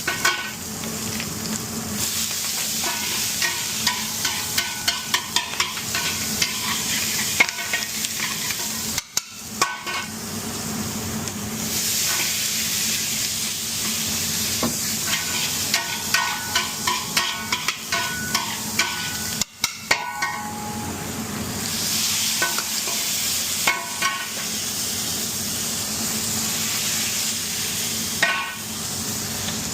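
Food sizzling as it fries in a pan, with a metal spatula stirring and clinking against the pan in quick runs of taps. The sound cuts out briefly twice.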